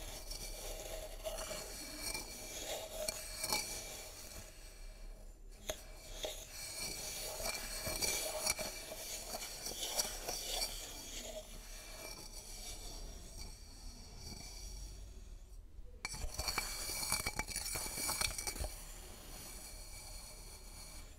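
Metal spoon scraping and clinking against a glass beaker while powdered herbs are scooped and mixed, with short pauses twice.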